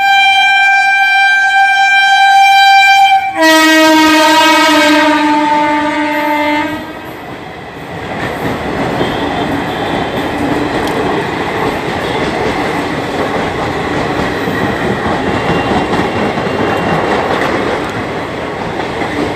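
Locomotive horn sounding two long notes, a high note for about three seconds, then a lower one. The horn gives way to a passenger train's coaches rolling past, with steady rumble and wheel clatter on the rails.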